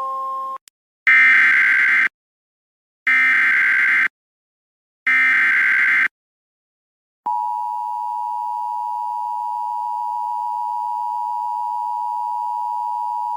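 Emergency Alert System activation: three one-second bursts of SAME digital header data, each followed by a second of silence. About seven seconds in, the steady two-tone EAS attention signal starts and holds. It heads a National Weather Service severe thunderstorm warning.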